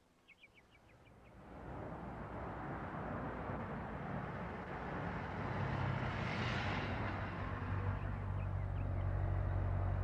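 A car driving by. Road and engine noise builds over the first two seconds, grows louder to a peak about six and a half seconds in, and carries a steady low engine hum through the second half. A few short high chirps come just before the car noise begins.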